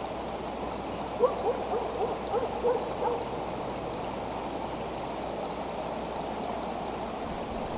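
An animal calling: a quick series of about eight short, slightly rising notes lasting about two seconds, over a steady rushing noise like running water.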